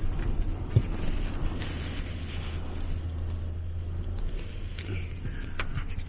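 Storm wind and rain on a camper van, heard from inside: a steady low rumble with a hiss above it, and a single knock about a second in.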